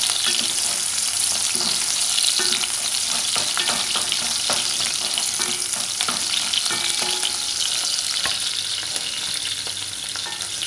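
Chopped onion sizzling in hot oil in an enamelled pot, being sautéed until golden brown. A steady hiss runs throughout, with frequent short scrapes and taps of a wooden spatula stirring against the pot.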